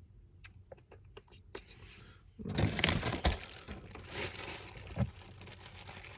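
Cabin air filters and their packaging being handled: a few light clicks at first, then, about two and a half seconds in, loud crinkling and rustling with a few sharper crackles.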